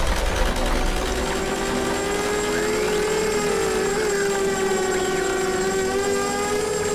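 A sustained droning tone with overtones, slowly wavering up and down in pitch.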